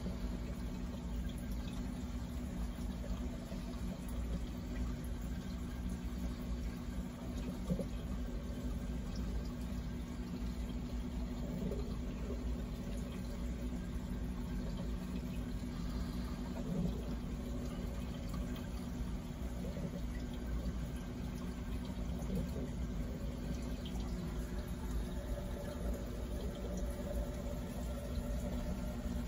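Aquarium filtration running: a steady flow and trickle of water, with a low steady hum underneath.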